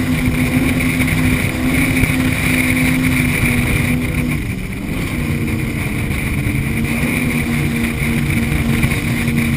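Engines of a Cigarette Cafe Racer powerboat running at speed, a steady drone under the rush of spray and water against the hull and wind on the microphone. The engine note drops briefly about halfway through, then comes back.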